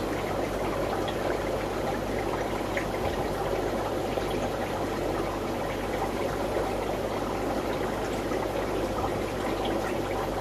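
Steady bubbling and trickling of aquarium water, with a faint low hum beneath and small scattered ticks.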